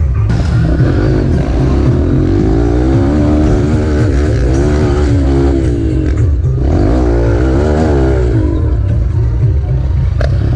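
Off-road vehicle engine revving under load, its pitch rising and falling repeatedly over a heavy, constant low rumble.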